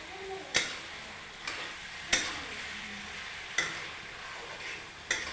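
Ridge gourd (torai) sabzi sizzling in a pan as it is stirred, with a spoon knocking against the pan four times, about a second and a half apart.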